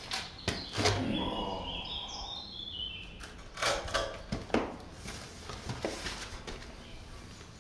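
Knocks and clunks of a wooden window frame being lifted and handled, a few of them sharp. A bird sings a short phrase of high notes stepping down in pitch about two seconds in.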